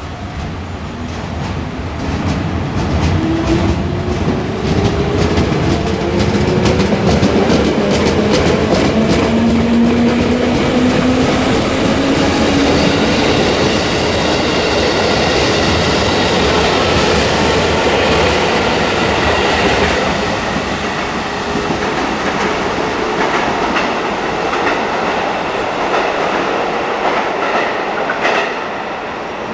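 JR West 221 series electric multiple unit pulling away and passing, its motors whining upward in pitch as it accelerates, with wheels clicking over rail joints as the cars go by.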